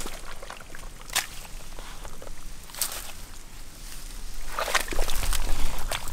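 Hands digging grass roots out of wet marsh mud: wet squelching and the rustle of dry grass stems. Two sharp snaps come about a second and three seconds in, and the handling noise grows louder near the end.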